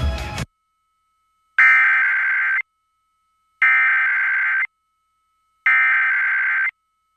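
Emergency Alert System SAME header off a radio broadcast: three buzzy bursts of digital data tones, each about a second long with about a second's gap between them, the coded opening of a required weekly test. A louder burst of broadcast audio cuts off about half a second in, and a faint steady tone hangs between the bursts.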